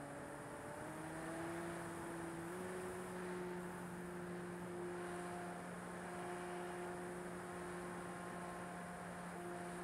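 RC Corsair model plane's motor and propeller heard from on board in flight: a steady hum over a rush of air. The pitch steps up about a second in and again at about two and a half seconds, then holds.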